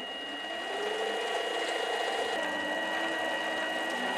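Mini lathe running with a steady whine carrying two high tones, while a centre drill in the tailstock chuck cuts a centre hole into the end of the spinning workpiece.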